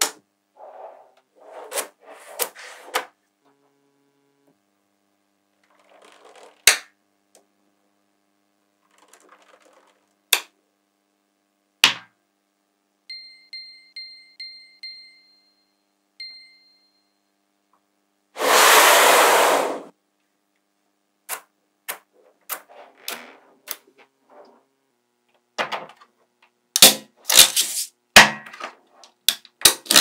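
Small magnetic balls clicking and snapping together as they are pressed and fitted into place, in scattered clusters of sharp clicks. Around the middle a short run of bright chime dings plays, followed by a loud rushing hiss lasting about a second.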